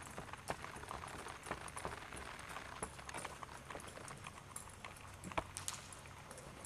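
Hoofbeats of an AQHA/APHA reining gelding loping on soft arena dirt: irregular muffled thuds and scuffs, over a low steady hum.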